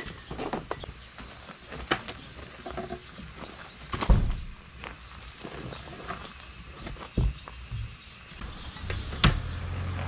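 An insect's high, finely pulsed buzzing song switches on about a second in and cuts off abruptly about a second and a half before the end. Dull knocks fall over it, the loudest about four seconds in and others near seven and nine seconds.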